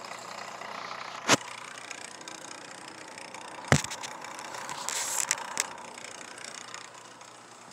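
Two sharp clicks about two and a half seconds apart, then a short rustle with two lighter clicks, over a steady background hum.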